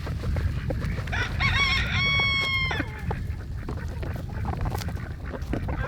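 A rooster crowing once, about a second in: a few rising notes and then a long held note that drops off at the end, over low rumbling background noise.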